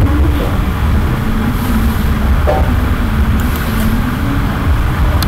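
Steady, loud, low rumbling background noise with a few faint high ticks.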